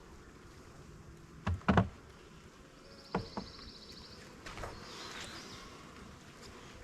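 Knocks and clunks from handling a plastic Pro-Nuc bee nuc box while working it open: two sharp knocks about a second and a half in, then two lighter ones about three seconds in. A short, quickly pulsed high trill sounds at about the same time as the lighter knocks.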